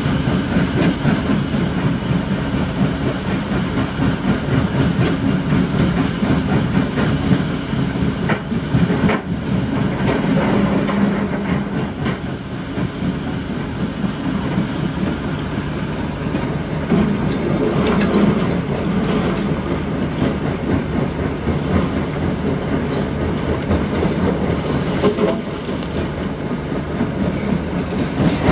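Tracked mobile rock crusher running and crushing stone, a steady heavy rumble with continuous rock clatter. The diesel engine of a Volvo EC480 excavator loading stone into it runs underneath.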